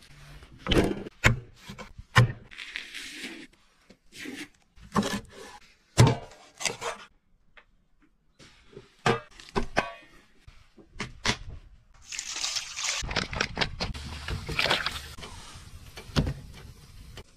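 A run of sharp knife chops on a wooden cutting board, each a separate knock with short gaps between. Then, for the last few seconds, a steady crackling and rustling as wood is pushed into a burning fire.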